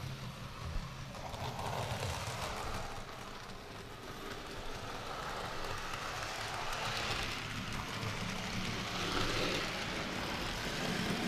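Model railway trains running on the layout's track: a steady rattle of small wheels on the rails over a low electric motor hum.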